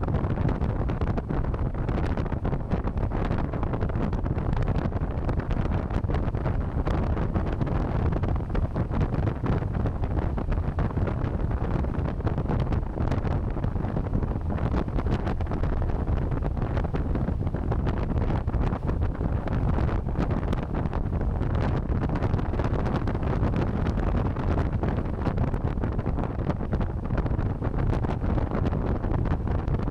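Hard wind buffeting the microphone on a moving electric motorcycle: a steady, dense rush, strongest in the low end and flickering throughout.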